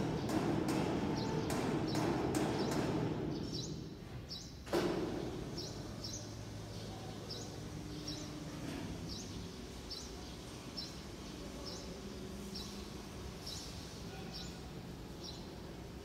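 Steady industrial hum of factory machinery beside a mesh belt furnace line, with fast clicking in the first few seconds. A single sharp knock comes about four and a half seconds in. After it the hum is quieter, and a short high chirp repeats a little more than once a second.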